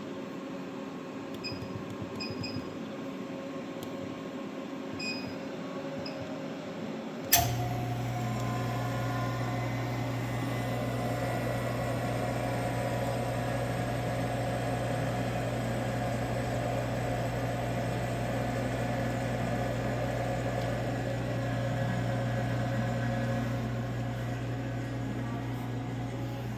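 Air-conditioner refrigerant recovery machine switched on with a sharp click about seven seconds in, then its compressor running with a steady low hum.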